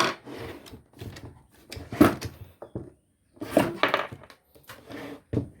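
Small screwdriver prying and scraping at a glue-locked plastic part of a mini tower speaker: irregular scrapes, clicks and knocks, with a short pause about three seconds in.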